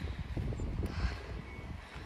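Wind buffeting the microphone: an uneven low rumble.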